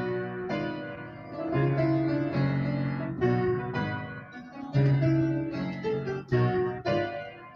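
Piano playing a slow run of chords, a new chord struck about every three-quarters of a second and left to ring, heard through a video-chat connection.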